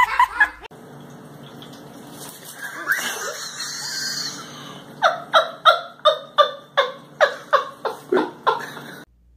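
A person laughing hard in a rapid run of ha-ha bursts, about three a second, from about halfway through until it cuts off abruptly near the end.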